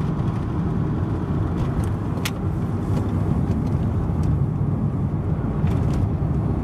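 Steady in-cabin running noise of a car driving at road speed, a low rumble of engine and tyres on the road, with a few faint light ticks.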